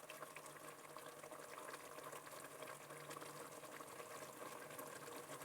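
Faint bubbling and crackling of a tomato, onion and butter base simmering in a pot, with a faint low steady hum underneath.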